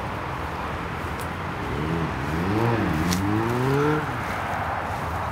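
Steady road-traffic noise, with a motor vehicle accelerating about two seconds in: its engine pitch rises, drops as if at a gear change, rises again and stops suddenly about four seconds in.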